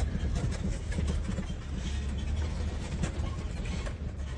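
Jeep Wrangler Rubicon crawling slowly over a rocky, bumpy trail: a steady low rumble from the engine and drivetrain, with frequent knocks and rattles as it jolts over the rocks.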